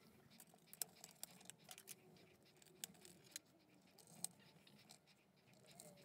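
Near silence with scattered faint light clicks and taps, mostly in the first half, as a thin metal laptop cover plate is handled and fitted back into place.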